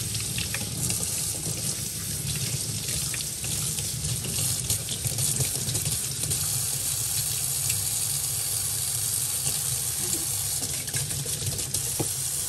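Tap water running steadily into a utility sink, splashing over a bundle of paint brushes held under the stream as the brush cleaner is rinsed out of them.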